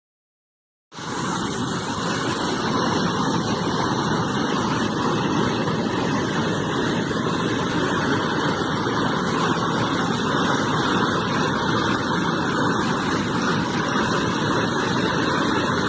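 Water rushing over the concrete spillway of an overflowing reservoir dam: a steady, loud rush that starts suddenly about a second in.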